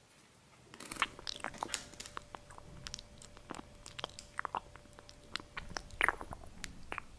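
Striped toothpaste being squeezed from a pump dispenser into a crisp waffle cone: a dense run of crackles and clicks starting about a second in, with a faint steady whine under most of it.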